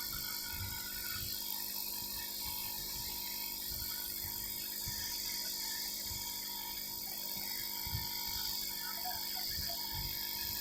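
Hot air rework station blowing a steady airy hiss while solder is heated to fix a new charging connector to a phone's circuit board, with faint soft knocks of handling underneath.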